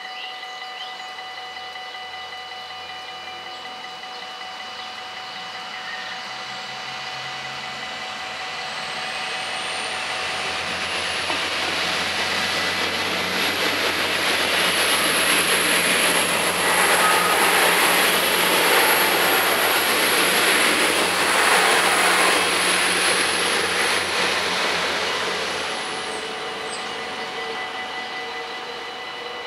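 Dutch level-crossing bells ringing steadily while a LINT 41 diesel railcar approaches, passes and fades away. The rumble of the train builds from about six seconds in, is loudest midway with a high whine over it, and dies down near the end while the bells keep ringing.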